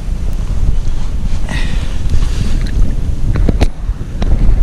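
Strong wind buffeting the camera microphone in a steady low rumble. A few small water splashes and clicks near the end, as a hand holds a pike in the water.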